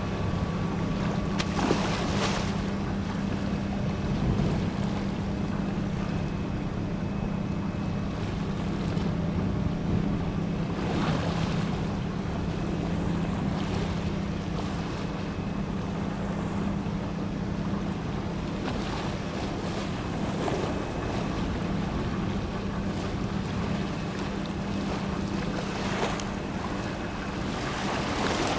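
Harbour-side ambience: wind buffeting the microphone and water lapping, over a steady low mechanical hum, with a few brief stronger gusts.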